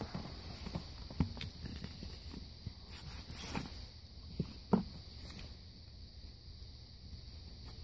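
Hands handling a cardboard box of trading cards on a wooden table: a few soft, scattered knocks and rustles.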